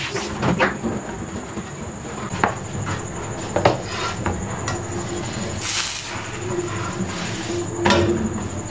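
Steady rushing of a gas stove burner under an iron tawa, with a few light clicks and scrapes of metal tongs as a paratha is laid on the griddle and turned.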